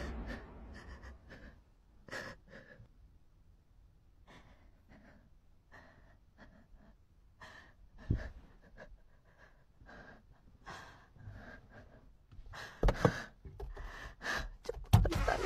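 Irregular gasps and hard breathing from a person, with scattered knocks and rustles of movement, growing louder near the end.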